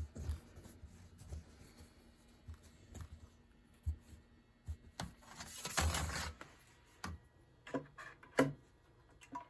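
Handling noises while a box fan's power cord is plugged in: scattered light knocks, a rubbing scrape lasting about a second around the middle, then two sharp clicks near the end. The fan is not running.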